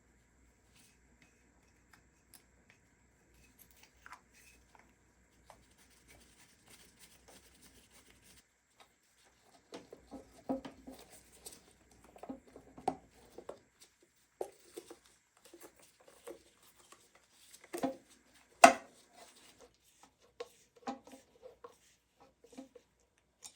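Scattered clicks, taps and rubbing of parts being handled during hand work on a motorcycle, with one sharp knock about three-quarters of the way through.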